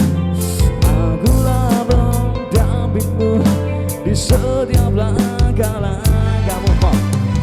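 A pop-rock song with a drum kit keeping a steady beat, bass and guitar, and a voice singing over it.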